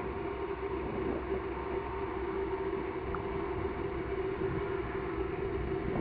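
Steady motor hum with one constant tone, under a low wind rumble on the microphone.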